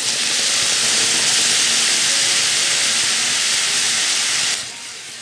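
Water poured into a hot frying pan of stir-fried curry potato filling, hissing loudly as it hits the hot pan and flashes to steam. The hiss stops abruptly about four and a half seconds in, leaving a much quieter background.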